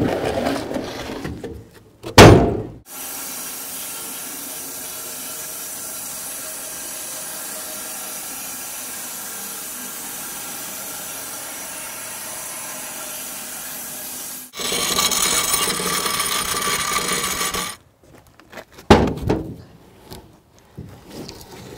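Heavy elm slabs knocking against the mill and trailer as they are handled. Then a bandsaw mill cutting through an elm log with a steady, even sawing noise, which turns louder for about three seconds and stops abruptly. A few more wooden knocks follow near the end.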